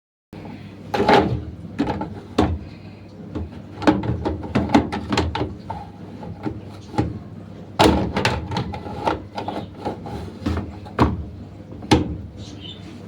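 Plastic knocks and clicks from a washing machine's detergent drawer being handled and fitted, a dozen or so sharp knocks spread irregularly, some with a short ringing tail.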